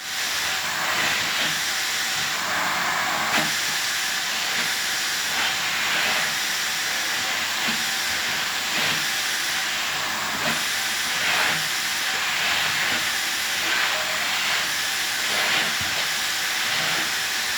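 Vacuum cleaner running with a steady suction hiss as its nozzle is run over a cat's fur, the hiss swelling slightly every second or so.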